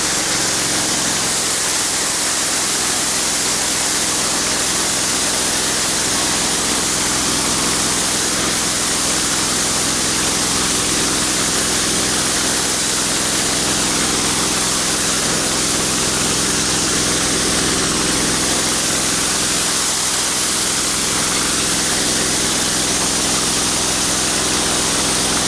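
Pressure washer wand spraying water through a wide white (40-degree) tip onto a concrete sidewalk: a steady hiss of spray over the steady hum of the washer's motor.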